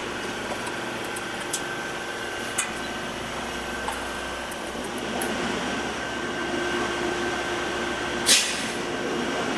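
Steady hum of glass-factory machinery, with a few light clicks and one loud, short, sharp burst about eight seconds in.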